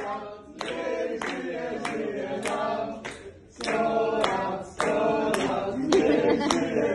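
A crowd of guests singing a birthday song together in Polish, with claps on the beat about every half second. The singing breaks off briefly about three seconds in, then carries on.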